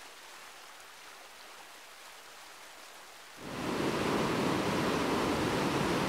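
Shallow stream rippling over stones, a soft hiss. About three and a half seconds in it changes abruptly to the much louder, deeper rush of whitewater churning through a narrow rock gorge.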